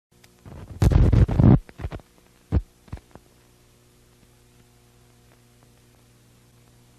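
Old film soundtrack noise behind a countdown leader: a burst of loud crackling pops about a second in, a few single pops after it, then a steady low hum.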